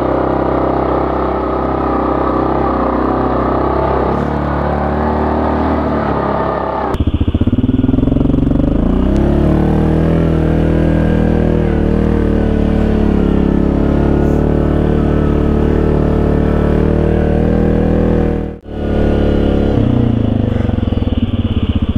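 Yamaha ATV's single-cylinder engine running steadily under load on a trail, in four-wheel-drive low. The sound changes abruptly about a third of the way in and drops out for a moment near the end.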